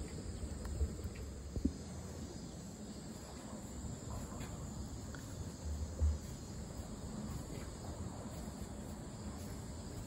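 Outdoor background noise: a steady high-pitched hiss over a low rumble, broken by a few dull bumps, the loudest about six seconds in.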